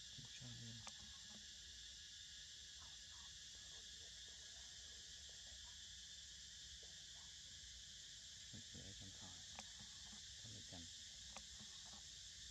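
Faint, steady insect chorus of crickets or similar forest insects, a continuous high chirring with no break. A few soft low rustles and taps come near the start and again in the later seconds.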